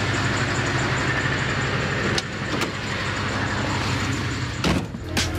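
Pickup truck engine idling steadily, with two sharp clicks a little over two seconds in and a few knocks near the end as the cab door is opened and shut.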